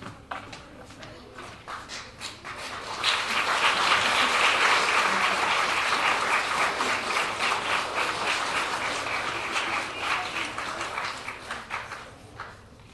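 Audience applauding: scattered claps at first, swelling into full applause about three seconds in, then dying away near the end.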